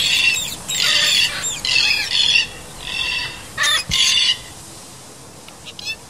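Psittacula parakeets squawking: a run of about six harsh, screechy calls in the first four and a half seconds, then they stop.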